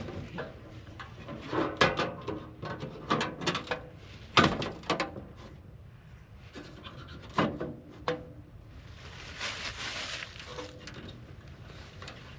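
Rustling and scraping of tent fabric being handled, with irregular bumps and knocks.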